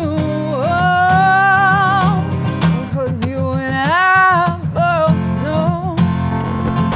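A woman singing long, wavering held notes, sliding up into them, over a strummed acoustic guitar.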